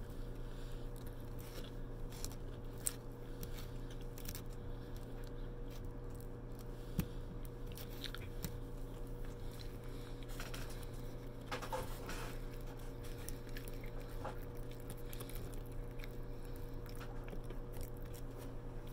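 Close-miked chewing of fried lumpia, with crunching and scattered sharp mouth clicks over a steady low hum.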